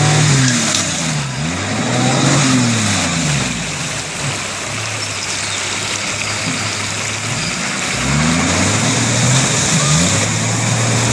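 Off-road 4x4's engine revving up and down as it drives through a rocky river, wheels splashing through the water over the steady rush of the stream. The revs climb and fall in the first few seconds and again from about eight seconds in, easing off in between.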